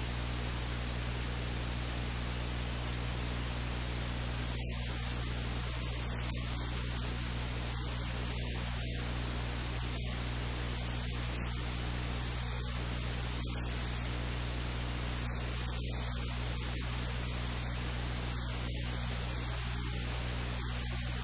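Steady static hiss with a low electrical hum underneath, unchanging throughout; no other sound.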